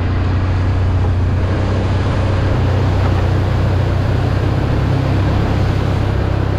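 Can-Am 1000 ATV's V-twin engine running steadily under way, a constant low hum with broad ride noise over it.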